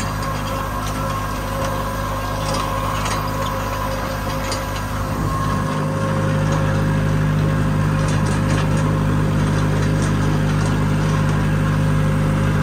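Tractor engine running steadily under working load, with faint clicks and rattles over it; it gets a little louder about five seconds in.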